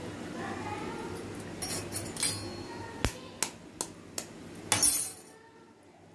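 A hen's egg tapped four times in quick succession against the rim of a stainless steel bowl, then its shell cracking open with a louder crunch.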